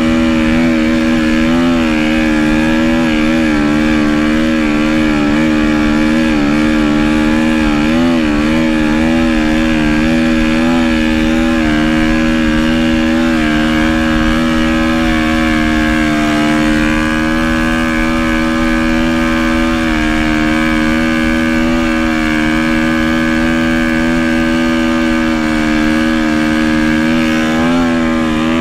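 Dirt bike engine running continuously, its pitch wavering slightly with small throttle changes during the first ten seconds or so, then holding steady.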